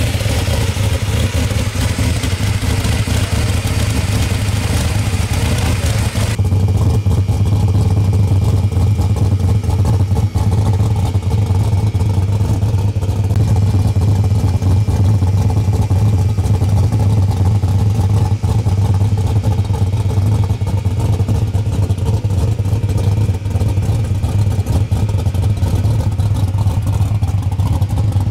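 A vehicle engine running steadily, a loud low drone that neither rises nor falls. About six seconds in, the hiss above it drops away sharply.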